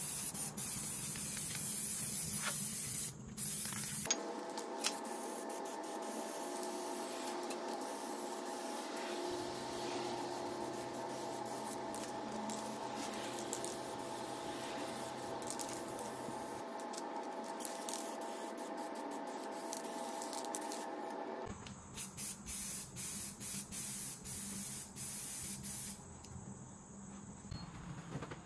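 Aerosol spray paint can spraying in a steady hiss, then in a run of short, broken sprays about three quarters of the way through.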